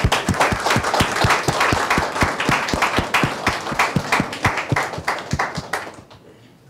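Audience applauding a plaque presentation, a dense run of claps that dies away about six seconds in.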